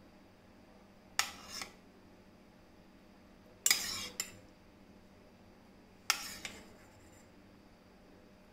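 A metal spoon scraping and clinking against a steel saucepan three times, scooping out soft cooked rice.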